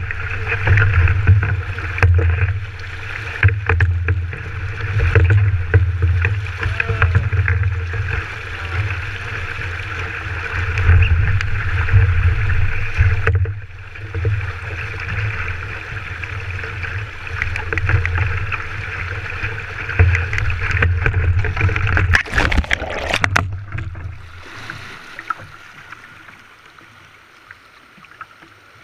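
River rapids rushing against a sit-on-top fishing kayak, heard through a hull-mounted GoPro as a steady rush with a low rumble and frequent knocks from the paddle and hull. About 22 seconds in comes a burst of splashing and clatter as the kayak rolls onto its side, and the rush then drops to a much quieter level.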